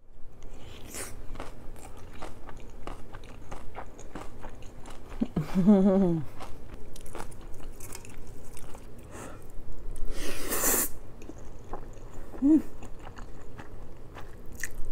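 Close-miked chewing of a mouthful of spicy silbi kimchi bibimbap, with many small wet mouth clicks and crunches. A short hummed "mm" comes about five and a half seconds in, and a sharp breath about ten seconds in.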